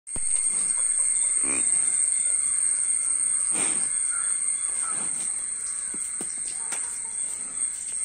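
Farmyard birds calling: a few short separate calls and chirps over a steady high-pitched whine.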